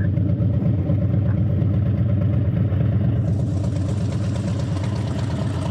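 Harley-Davidson air-cooled V-twin engine idling steadily, with a hiss joining about three seconds in.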